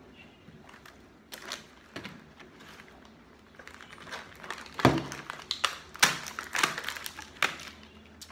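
Plastic food packaging crinkling and rustling in the hands as Lunchables wrappers and trays are handled, with knocks of things set down on a table; the loudest crackles and a thud come about five and six seconds in.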